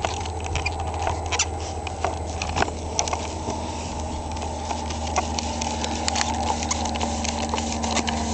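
Potato cannon barrel being screwed on by hand: irregular light clicks and scrapes of the threaded parts, over a steady low hum.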